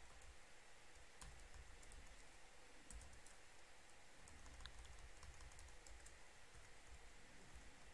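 Faint, irregular keystrokes on a computer keyboard as code is typed and edited, over low room rumble.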